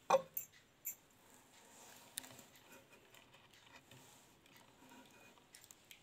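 Small plastic beads clicking and rattling against each other as a beaded figure is handled and a needle and nylon thread are pulled through it. A few sharper clicks come in the first second, then lighter scattered ticks and rustling.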